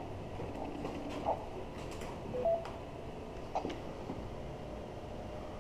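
Handheld radio keypad: faint clicks of keys being pressed and two short beeps about two and a half seconds in, over a low background hum.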